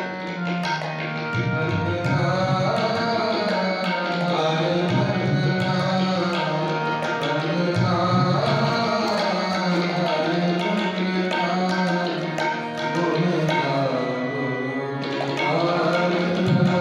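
Tabla and harmonium playing together: the tabla sets a steady rhythm of strokes over the harmonium's sustained reed chords.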